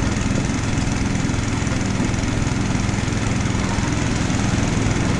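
Motorcycle V-twin engine running steadily while riding, with a steady rush of wind and road noise.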